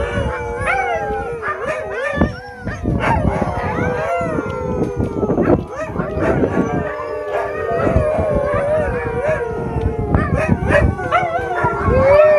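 A group of Alaskan Malamutes howling together, many drawn-out howls overlapping and gliding up and down in pitch.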